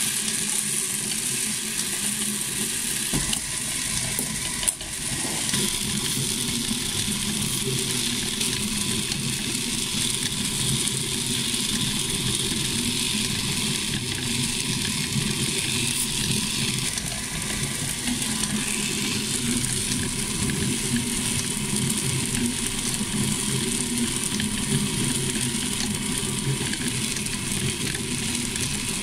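Electric star-rolling machine turning a plastic bucket: a steady motor hum with a faint whine, under the continuous rattle of small firework star cores tumbling against the bucket wall. A single small knock comes about five seconds in.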